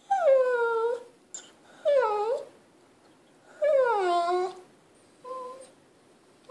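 Lhasa Apso dog whining in four drawn-out, howl-like calls. The first and third slide down in pitch, the second dips and rises again, and the last is short and quieter. It is attention-seeking whining from a dog that wants to play.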